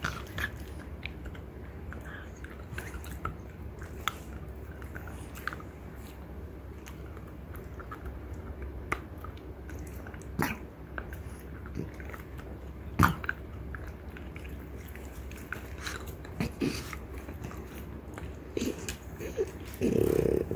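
Two French bulldogs gnawing on deer antlers: teeth grinding and scraping on hard antler, with scattered clicks and crunches and one sharp click about two-thirds of the way in. A louder, muffled sound about a second long comes near the end.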